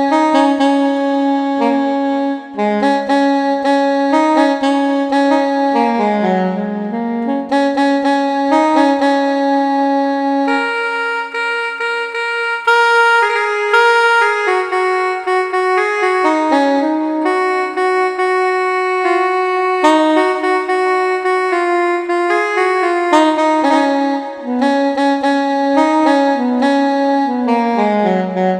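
A saxophone tone played as a melody on a MIDI keyboard, running through phrases of held and moving notes with a few short gaps between them.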